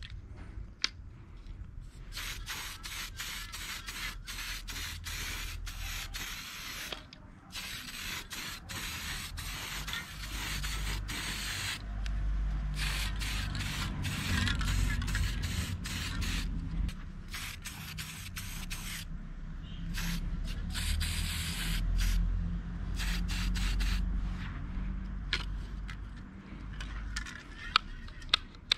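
Aerosol spray-paint can spraying through a homemade spray grip: a hiss in repeated bursts with many short breaks.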